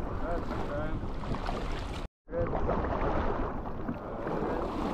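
Rushing whitewater and wind buffeting the microphone of a camera on a raft running river rapids. The sound cuts out for a split second about two seconds in.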